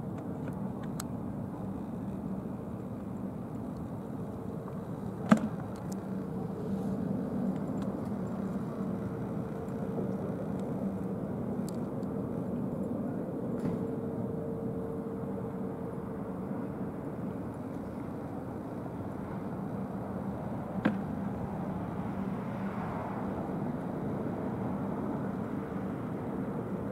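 Helicopter in flight, a steady hum of rotor and engines with a faint steady tone in it. Two short sharp clicks stand out, about five seconds in and again about twenty-one seconds in.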